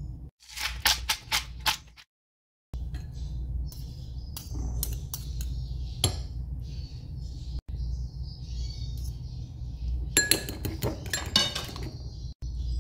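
Metal fork clinking against a ceramic bowl while mixing egg yolks: a quick run of clinks near the start, scattered taps through the middle, and another rapid flurry near the end, over a steady low hum.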